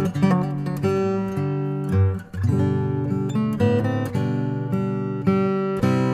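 Background music: strummed acoustic guitar playing chords.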